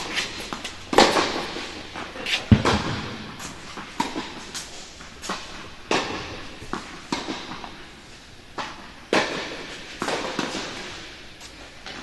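Tennis ball hits off racket strings and ball bounces on an indoor hard court: a string of sharp knocks, about one a second, each with a short echo.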